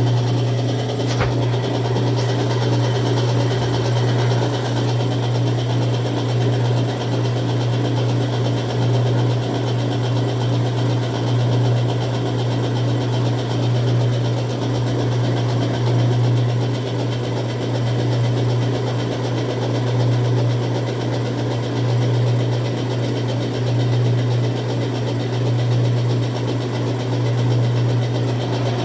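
Whirlpool direct-drive washing machine running its spin, the motor giving a steady hum, with a faint click about a second in. The basket is not coming up to full spin speed, which the owner puts down to the clutch or the basket drive.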